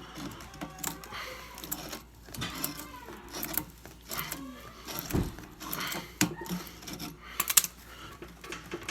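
Plumbing work by hand: irregular metal clinks, knocks and scrapes of a wrench and threaded pipe fittings being handled, with a quick cluster of sharp clicks late on.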